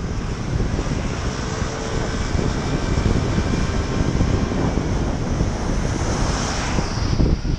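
Wind buffeting the microphone of a camera on a moving bicycle, over the hiss of tyres and passing motor traffic on a wet road, with the hiss swelling near the end.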